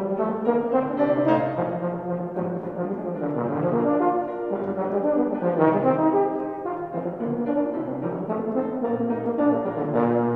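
Euphonium playing a fast solo line of quickly changing notes, accompanied by a Steinway grand piano.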